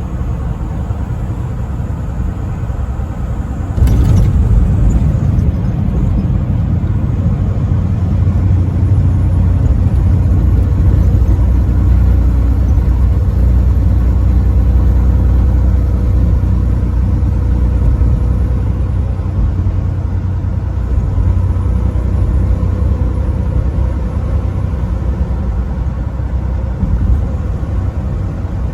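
A truck driving on the highway: steady low engine and road rumble. About four seconds in there is a short knock, and the rumble gets louder and stays louder.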